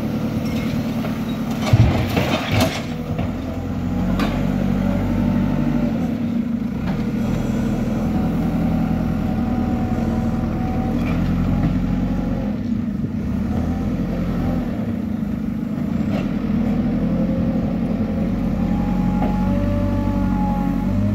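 JCB backhoe loader's diesel engine running steadily as the machine works. A few loud knocks come about two seconds in.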